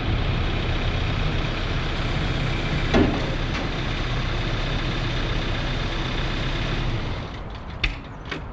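Case 590 Super N backhoe's diesel engine running steadily, with a single sharp clunk about three seconds in. The engine shuts off about seven seconds in, followed by two sharp clicks.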